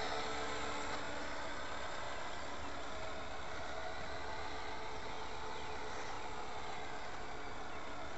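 Radio-controlled scale JetRanger helicopter flying some way off: a steady motor and rotor whine under an even hiss.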